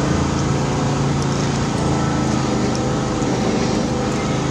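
An engine running steadily, a constant low hum under a wash of outdoor noise.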